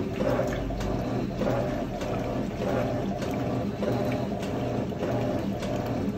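Electrolux LTR12 top-loading washing machine agitating a load of clothes in water: water sloshing over a mechanical whirr that swings back and forth about twice a second, with light clicks.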